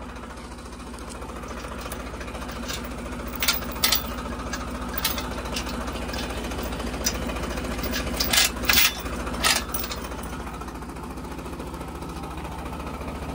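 Farmtrac 60 tractor's diesel engine running steadily under load while pulling a steel field cultivator. Sharp metallic clanks come from the implement a few times, around four and nine seconds in.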